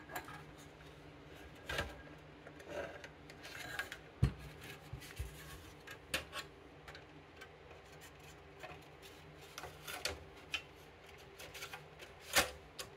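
Scattered clicks, scrapes and rubbing as a Macintosh SE logic board, with an accelerator card fitted, is handled and slid back into its metal chassis, with a dull knock about four seconds in and a sharper click near the end.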